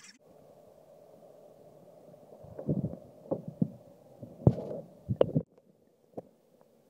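Muffled thumps and knocks, a cluster of about half a dozen in the middle, the loudest about four and a half seconds in, over a faint low hum with the high sounds cut away.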